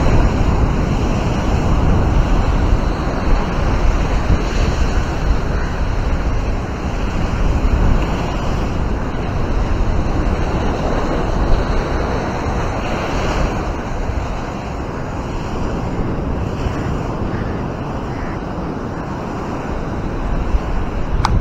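Surf washing onto a sandy beach, mixed with wind buffeting the microphone in a low, uneven rumble.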